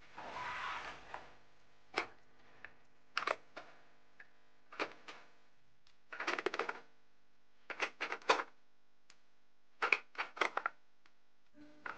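A short rustle of foil and plastic packaging being handled, then groups of light plastic clicks and taps as small items and plastic organiser drawers are handled.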